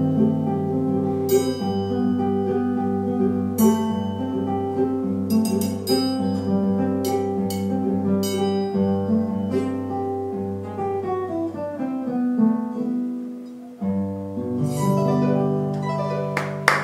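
Live Brazilian choro music: acoustic guitar and cavaquinho playing a baião together, plucked and strummed, with sharp strikes. Around twelve seconds in the playing thins and nearly stops, then a last held chord closes the piece.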